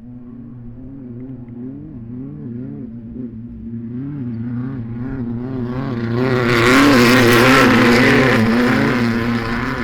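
Racing UTV engines revving, the pitch rising and falling with the throttle, building to a loud pass about six to nine seconds in and then fading.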